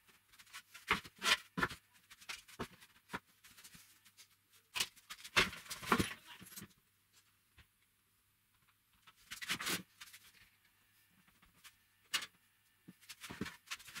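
Handling noises of pine boards knocked and shifted on a wooden workbench, with a metal chain clinking, in a few separate bursts of short knocks and rattles with quiet gaps between.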